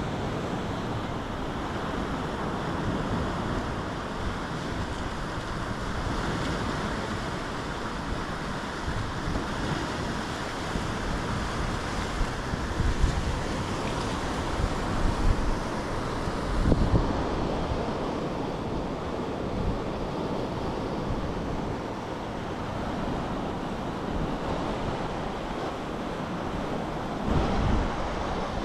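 Sea waves washing ashore, with wind gusting on the microphone, strongest about halfway through and again near the end.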